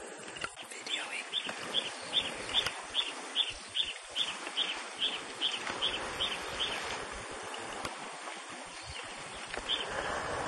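A bird calling the same short high note over and over, about two and a half times a second for some six seconds, with one more note near the end, over a steady background hiss.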